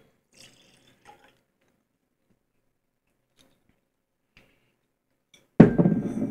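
A few faint small clicks, then near the end a sudden loud knock of a drinking glass on a tabletop, ringing briefly afterwards.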